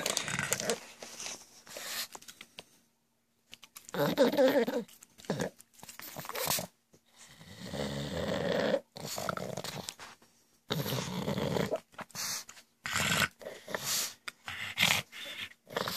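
Pug making rough snorting, snore-like noises in irregular bursts of about a second, with short pauses between.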